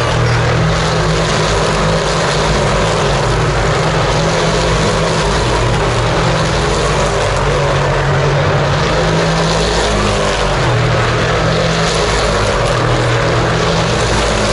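Loud, steady drone of racing car engines running on the circuit, with no single car passing by.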